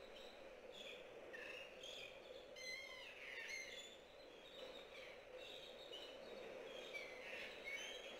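Faint, irregular chirping of small birds: short high calls that dip and rise, thickest about three seconds in and again near the end, over a steady low hum.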